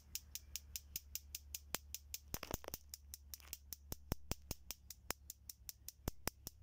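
Truma 3002 heater's spark igniter ticking steadily at its replacement ionization electrode, about five sparks a second, over a steady low hum.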